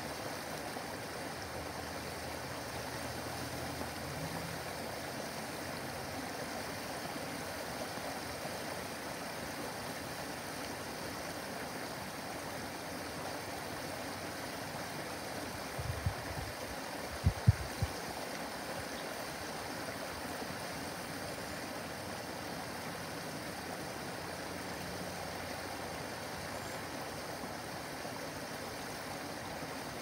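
Small backyard waterfall: water splashing and gurgling steadily over a rock cascade into a pond. A few low thumps come about halfway through.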